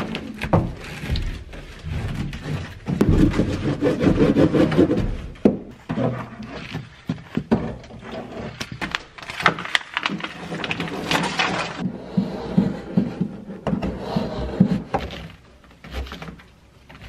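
Hand work fitting foil-faced Kilmat sound-deadening mat: scissors cutting the foil sheet, and the mat being rubbed and pressed onto the van's sheet-metal panels, with scrapes, rustles and scattered sharp knocks.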